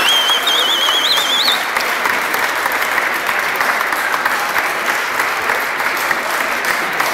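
A roomful of people clapping, a steady dense applause. In the first second and a half a high, warbling whistle sounds over it.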